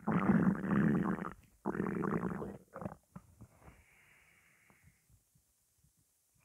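Empty stomach growling with hunger: two long gurgling rumbles in the first two and a half seconds, then a few short gurgles and a faint, higher gurgle that trails off about five seconds in.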